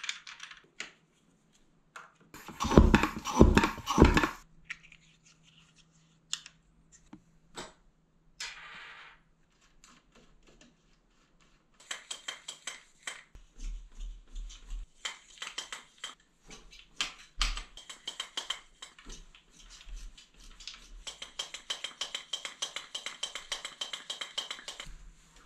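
A brief clatter of knocks and rattles about three seconds in as bike parts are handled. From about halfway on, a shock pump is worked in a long run of quick, even strokes to air up the Fox 36 Float fork's air spring.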